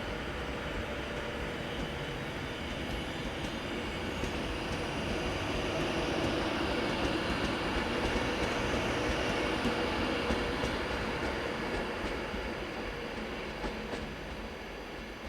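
A train running through a station on the rails, its rumble building to a peak around the middle and then fading away.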